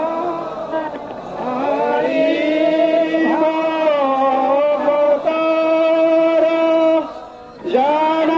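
Devotional chanting: long held sung notes sliding from one to the next, with a short break about seven seconds in.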